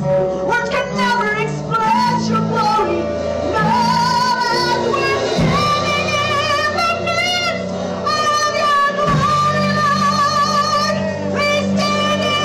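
Live worship music: women sing lead with vibrato over band accompaniment that holds sustained low notes.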